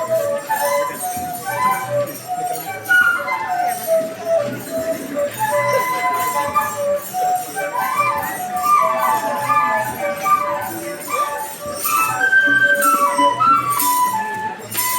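Traditional Kenyan flute playing a quick melody of short, hopping notes, with jingling njuga rattles shaken in time alongside it.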